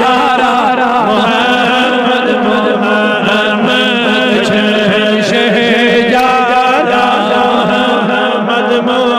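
Male voices chanting a Kashmiri naat: wavering, drawn-out melodic lines over a steady low hummed drone.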